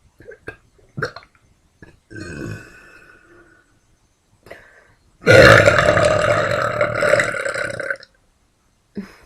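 A woman burping: a shorter burp about two seconds in, then a long, loud burp lasting nearly three seconds. A few small clicks come before and between them.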